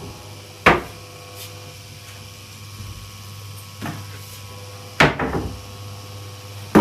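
Four sharp knocks or bangs, spaced unevenly over several seconds: three loud ones and a weaker one, the third followed by a brief rattle. A steady low hum runs underneath.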